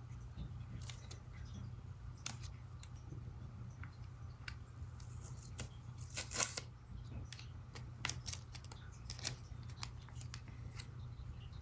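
Scattered small clicks, ticks and rustles of hands handling tape and small parts during the battery swap, over a steady low hum. The sharpest click comes about six seconds in.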